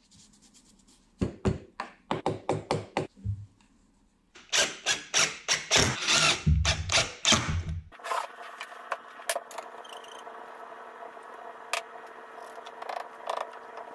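Cordless DeWalt impact driver driving pocket-hole screws into pine supports, in a run of short bursts that grows denser and heavier a few seconds in. From about eight seconds on, a steady hum with a few light knocks of wood being handled.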